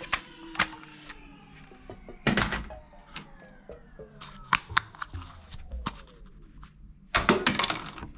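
Toy guns clicking and snapping as they are handled and fired: a string of sharp knocks, the loudest about two seconds in and a dense rattling cluster near the end, over faint tones that fall slowly in pitch.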